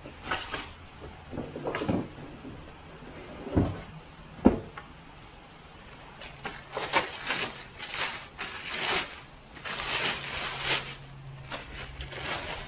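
Cardboard box and packaging being handled: a few sharp knocks and thumps, the loudest about four and a half seconds in, then a stretch of crinkling and rustling as the chainsaw is lifted out in its plastic bag.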